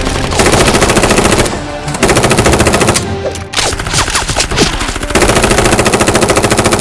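Rapid automatic gunfire sound effects in three bursts, the last the longest, over background music.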